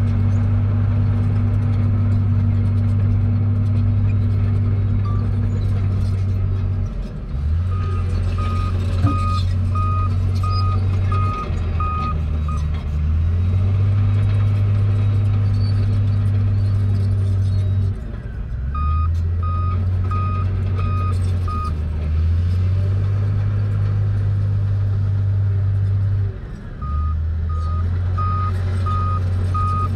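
Heavy diesel construction machinery running, its low engine note shifting up and down every few seconds. A reversing alarm beeps at an even pace, about three beeps every two seconds, in three separate spells.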